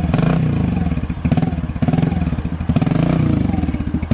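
Kawasaki KLX110 dirt bike's small single-cylinder four-stroke engine running just after starting, revved up and down in short blips about twice a second.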